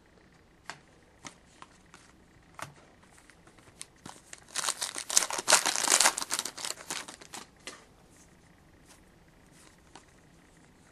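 Trading card pack wrapper being torn open and crinkled, a dense crackling rustle that lasts about three seconds in the middle, with scattered soft clicks of handling before and after.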